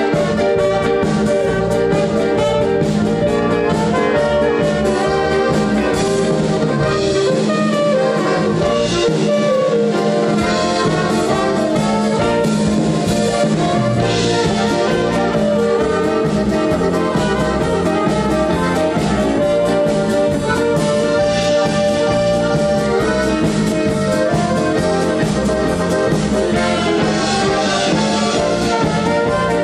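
Live band playing an instrumental passage: trumpet carrying the melody over accordions, archtop electric guitar, keyboard and drums, at a steady level.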